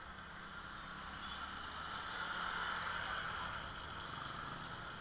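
Motor vehicle running, a steady hum that swells about halfway through and then eases off.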